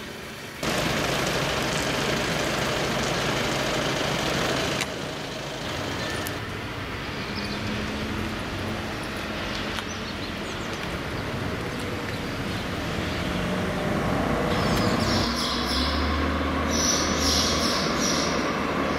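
Mercedes-Benz garbage truck sounds across several abrupt cuts: a diesel engine running, then in the last few seconds repeated high-pitched sounds over a low hum.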